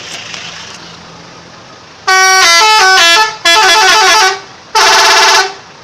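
Harapan Jaya bus's 'telolet' horn, a multi-tone musical horn, playing three loud blasts of a stepping tune. The first starts about two seconds in and lasts a little over a second; the other two are shorter.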